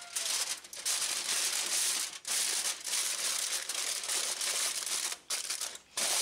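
Aluminium foil crinkling as hands pinch and crimp it down around a roasting tray. The crackling goes on in stretches with a few short breaks.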